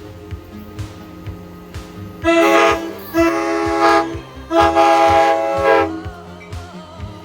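Multi-chime air horn sounding a chord in three loud blasts, starting about two seconds in, with the last blast the longest. Pop music with a steady beat plays underneath.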